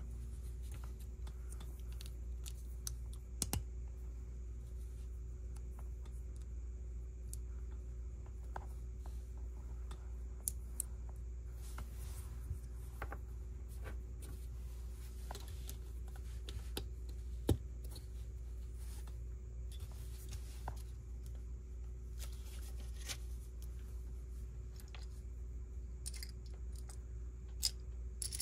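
Plastic Lego pieces being handled and pressed together: a sparse run of small clicks and clacks, one sharper about two-thirds of the way through, over a steady low hum.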